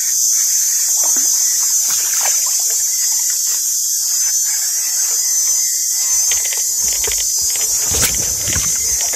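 Steady, high-pitched chorus of forest insects. Near the end a brief rustle and knock of brush or handling cuts in.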